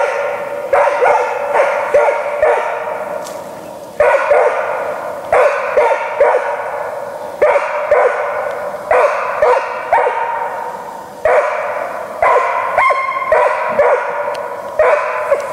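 Hunting dog barking repeatedly at a pine marten it has treed, holding the animal in the tree for the hunter. The barks come in quick runs of about five, with short breaks every few seconds.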